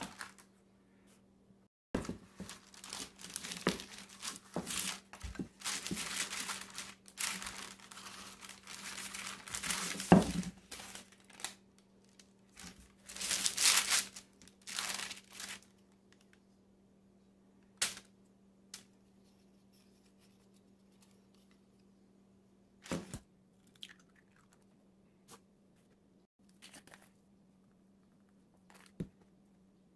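Paper and plastic wrapping rustling and crinkling under hands for about fourteen seconds, with a heavy thump about ten seconds in. Then come scattered knocks and taps of kitchen work over a faint steady hum.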